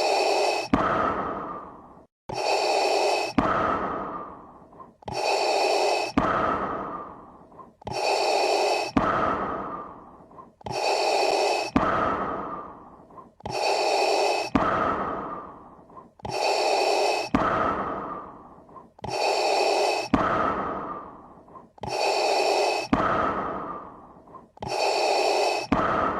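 Darth Vader's mechanical respirator breathing, the Star Wars sound effect: a sharp in-breath followed by a fading out-breath, repeating evenly about every three seconds.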